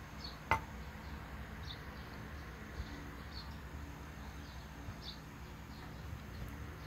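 A single sharp knock about half a second in, over a low steady hum, with faint short high chirps every second or two.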